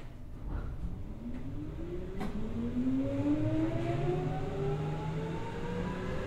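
Keikyu 800 series electric train with Mitsubishi field-chopper control, heard from on board pulling away from a station: the traction motors and gears whine in several tones that climb steadily in pitch as the train gathers speed, over a low running rumble. A single sharp click comes about two seconds in.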